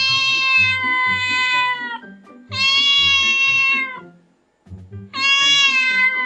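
A domestic cat meowing three times, each a long, drawn-out call of about a second and a half, steady in pitch and dipping slightly as it ends, over background music.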